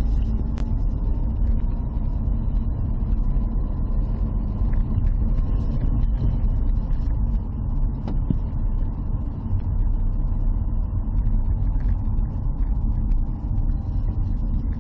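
Inside the cabin of a Dacia Sandero driving slowly: a steady low engine and road rumble with light clicking rattles throughout.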